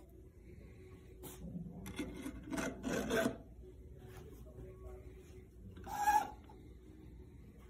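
Plastic model wellhead parts rubbing and scraping against each other and the table as they are handled and fitted together, in several short scrapes, the loudest a sharp one with a brief squeak about six seconds in.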